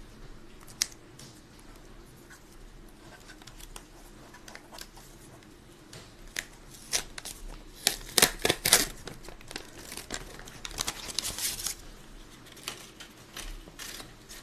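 Something being handled, with scattered sharp clicks and rustling. The loudest part is a quick cluster of clicks about eight seconds in, followed by a stretch of rustling about ten to twelve seconds in.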